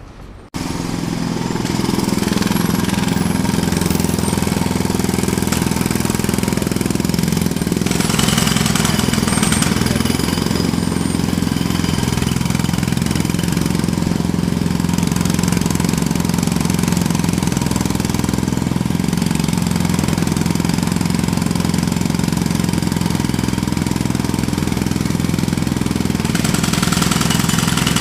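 Jackhammer hammering continuously at a rapid, even rate, starting abruptly about half a second in.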